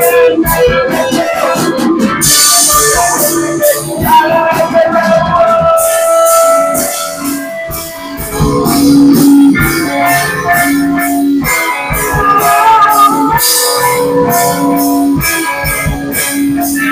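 A live band playing an instrumental rock jam: held melodic notes over a drum kit with cymbals.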